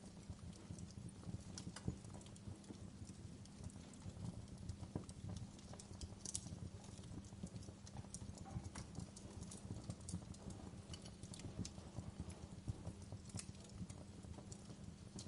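Fireplace crackling: irregular small pops and snaps over a low steady rumble.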